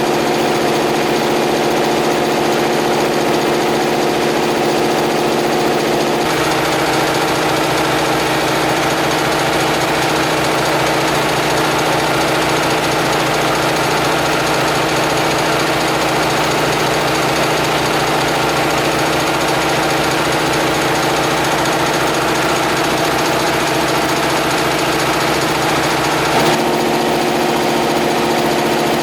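Homemade air compressor running steadily with a rhythmic mechanical beat. Its tone changes about six seconds in and changes back near the end.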